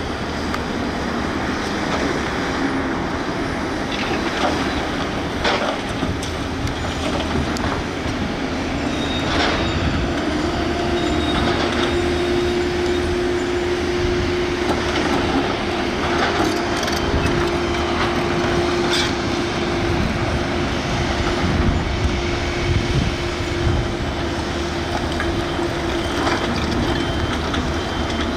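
Volvo EC210B tracked excavator working landfill refuse: its diesel engine and hydraulics run steadily, with a few sharp metallic knocks. A steady whine comes in about ten seconds in and drops away near the end.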